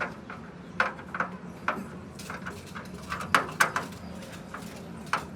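Irregular sharp metal taps and knocks, about eight in all with uneven gaps, typical of a hammer working out a dent in a car hood's sheet metal. A low steady hum runs underneath.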